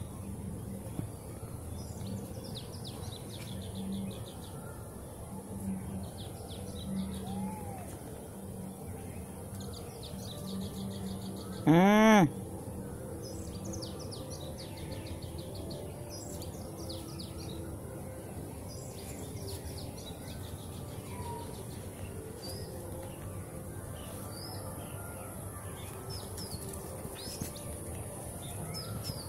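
Small birds chirping and trilling throughout. About twelve seconds in comes one short, loud cry that rises and then falls in pitch.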